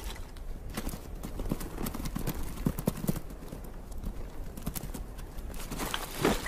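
Bharal hooves clattering on rock and snow as the animals run across a steep slope: a run of irregular knocks and clicks, with a louder clatter near the end.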